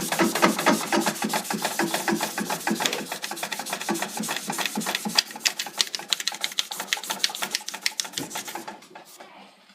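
Rapid back-and-forth scrubbing of a pinball playfield with a Magic Eraser, in fast, even strokes that weaken and stop near the end.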